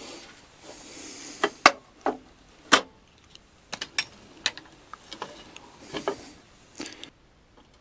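Handling noise: a run of about a dozen sharp clicks and light knocks as hard objects are handled and set down, with brief rustling near the start and again about six seconds in.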